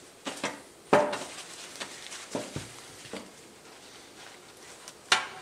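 Handling noises at a workbench: a clutch slave cylinder and shop towel knocking and clattering in a metal drain pan. The knocks are irregular, the loudest about a second in and another sharp one near the end.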